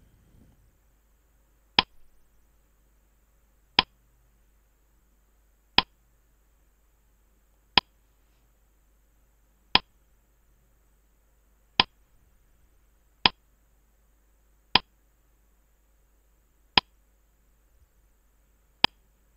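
Quiz countdown timer's clock ticking: a single sharp tick about every two seconds, ten in all.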